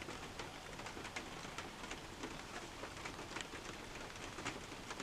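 Steady rain, an even hiss with irregular drops ticking.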